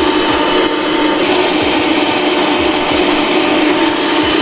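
Electric stand mixer running steadily with an even motor hum, whipping egg whites.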